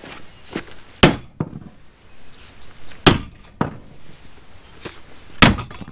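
Sledgehammer blows knocking loose the wooden support legs under a chicken coop: three hard strikes about two seconds apart, with lighter knocks between.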